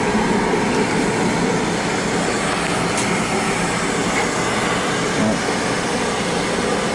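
Heating burner firing steadily, a continuous even running noise of fan and flame, as it heats a newly installed water tank up to temperature. A single light click about three seconds in.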